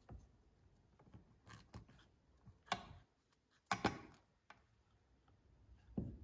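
Faint, scattered clicks and light knocks of small engine parts being handled as the cylinder base gasket is worked down over the exposed piston onto a chainsaw's crankcase. The few sharper knocks come a little under 3 s in, near 4 s, and at the very end.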